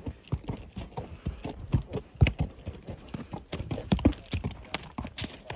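A horse's hooves clopping on a rocky dirt trail: an uneven run of several hoofbeats a second.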